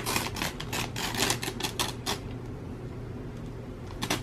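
Paper crinkling and tearing as a birthday card and its wrapping are pulled apart by hand: a quick run of crackles for about two seconds, then two more near the end.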